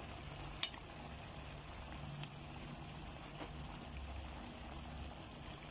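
Sweet-and-sour sauce with fried tuna simmering in a pan, a faint steady bubbling hiss, with a single sharp click under a second in.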